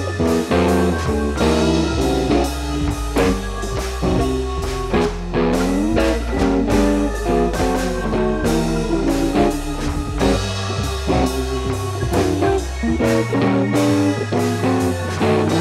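Background music: electric-guitar-led blues-rock with a bass line and a drum kit keeping a steady beat.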